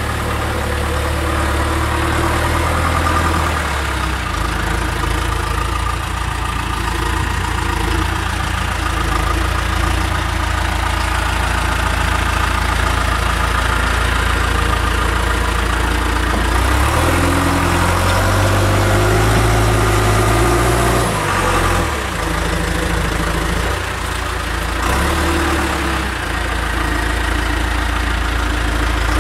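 Backhoe loader engine running steadily, its speed rising and falling for a few seconds about two-thirds of the way in.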